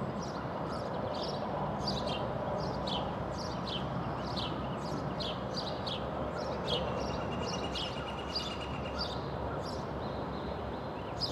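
Small birds calling, a run of short high chirps repeated every fraction of a second, with a brief even trill about halfway through. A steady rushing noise lies underneath throughout.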